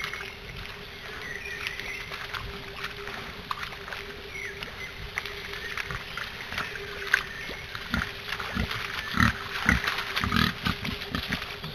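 Wild boar piglets grunting and splashing as they move through shallow muddy water, the sounds coming more often and louder after about eight seconds.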